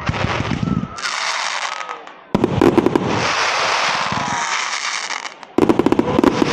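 Aerial fireworks going off: a sudden loud burst about two and a half seconds in and another near the end, each breaking into fast crackling, with softer crackle and hiss between them.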